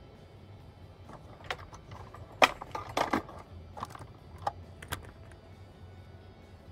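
A scattered run of light clicks and taps from hand-sewing wig wefts onto a cap on a canvas block head with needle and thread. There are about a dozen over a few seconds, with the loudest about two and a half seconds in.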